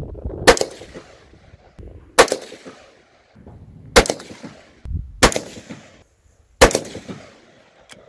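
Ruger Gunsite Scout bolt-action rifle in 5.56 firing five shots, roughly one and a half seconds apart, each a sharp crack with a short echo.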